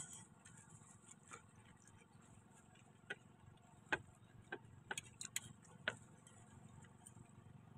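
Near silence with faint, irregular clicks and ticks scattered through it, over a low steady hum.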